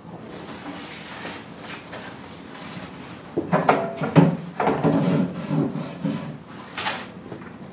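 A man's voice murmuring low and indistinctly, starting about three seconds in and fading near the end.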